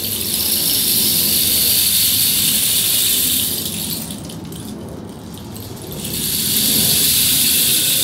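Dried-cactus rain stick turned over, the spines inside trickling down in a steady rushing hiss that sounds like falling rain. The first pour fades out about four seconds in, and after the stick is flipped again a second pour begins about two seconds later.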